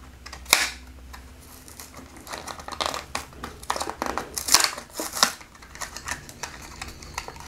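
A Hot Wheels blister pack being torn open by hand: the cardboard card ripping and the plastic blister crinkling, in a run of short, irregular rips and crackles. The loudest come about half a second in and again around three to five seconds in.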